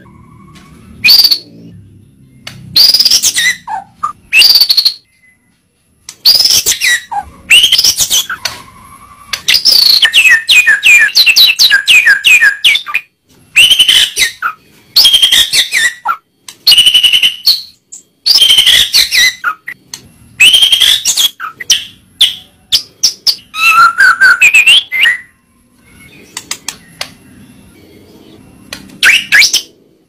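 White-rumped shama (murai batu) singing loud whistled phrases that sweep up and down in pitch, separated by short pauses. About ten seconds in it delivers a rapid run of short repeated notes lasting a few seconds.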